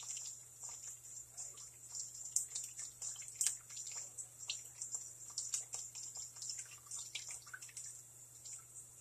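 Shell being cracked and picked off a hard-boiled egg fresh from ice water: a run of small, irregular crackles and clicks, with water dripping.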